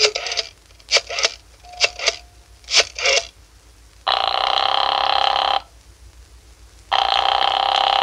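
Telephone sound effect: a quick run of dialing clicks, then two rings of a telephone bell, each about a second and a half long, as the call goes through.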